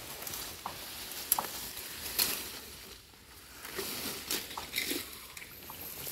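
Hands rummaging through wet mud and waterweed in shallow water: irregular squelches, splashes and crackles, with sharp ones a little over a second in and at about two seconds, and a brief lull around the middle.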